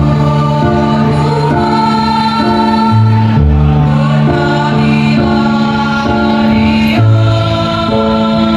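A choir singing, holding long chords that change every second or so.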